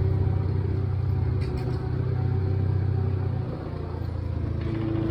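Farmall 350 tractor engine running steadily in first gear, with the torque amplifier engaged. Its level and pitch ease off slightly about three and a half seconds in.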